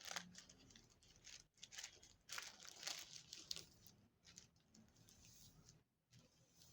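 Faint crinkling and rustling of tissue paper being folded by hand, in a few short rustles that cluster around the middle.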